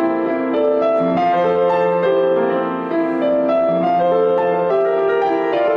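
Background music: a piano playing a slow, calm melody over held bass notes.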